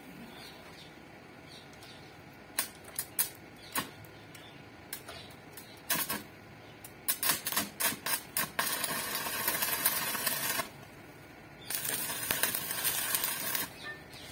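Stick (electrode) welding arc on steel: a string of short crackling arc strikes and brief bursts, then two sustained stretches of steady arc crackle of about two seconds each. These are tack welds holding a die block square before it is fully welded.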